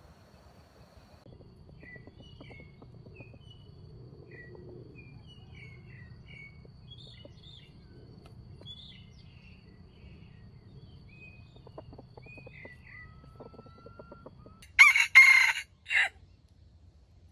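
A wild junglefowl rooster crowing once near the end: a short, loud crow of about a second and a half, broken by a brief gap before a last clipped note. Faint chirps of small birds come before it.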